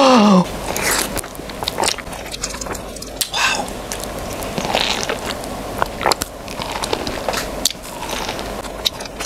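Close-miked biting and chewing on a fresh lemon wedge: a run of irregular wet crunches and smacks of juicy flesh. It follows a brief vocal exclamation at the very start.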